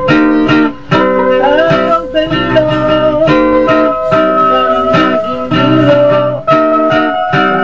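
Background music with guitar, some notes sliding up and down in pitch.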